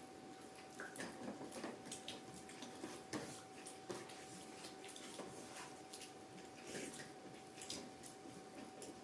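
Faint scattered clicks and soft taps, a few every second, over a thin steady hum.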